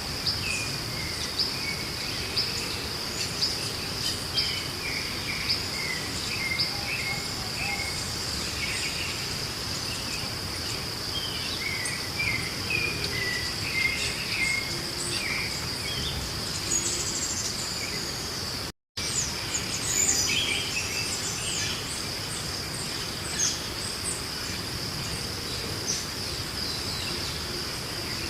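Outdoor tropical chorus: a steady, high insect drone with many short bird chirps and calls scattered over it. The sound cuts out completely for a moment about two-thirds of the way through.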